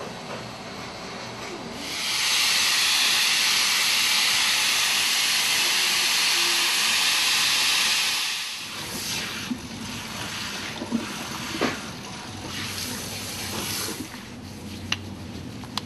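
Salon hair steamer's handheld nozzle blowing a steady hiss of steam over the hair for about six seconds, starting about two seconds in and cutting off. The steam drives the treatment into the hair.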